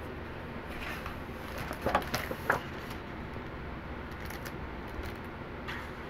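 A hardcover picture book being handled and opened: a few sharp crinkles and taps from the cover and pages around two seconds in, over a steady low hiss.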